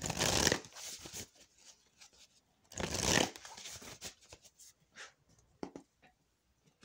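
Oracle cards being shuffled by hand: two short bursts of shuffling, at the start and about three seconds in, with lighter card clicks and taps between.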